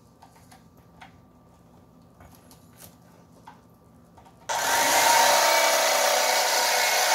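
A few faint taps, then about four and a half seconds in an electric fillet knife switches on and runs with a loud, steady buzz as its blades cut through a jack.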